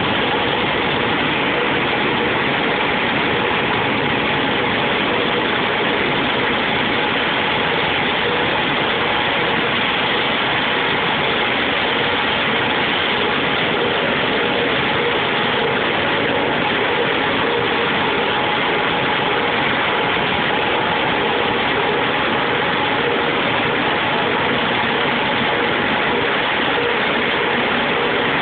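A machine running steadily at an unchanging speed, a constant mechanical noise with a faint steady hum.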